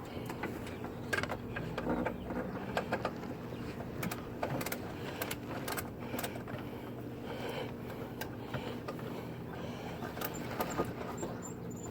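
Irregular light clicks and knocks scattered over a steady low hum.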